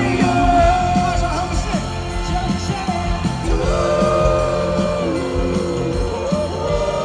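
Live pop concert music: a band with drums and bass under a sung vocal that holds long notes, one at the start and a longer one from about halfway through.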